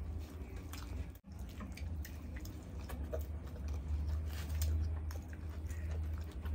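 Close-miked eating sounds of chole bhature eaten by hand: chewing, lip smacks, and wet squishing as fingers tear fried bhatura and scoop it through thick chickpea curry, with many small clicks. Underneath runs a steady low hum, and the sound cuts out briefly about a second in.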